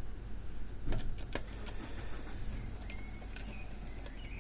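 A few sharp, isolated metallic clicks and taps as the opened lever lock and its parts are handled, over a low steady hum.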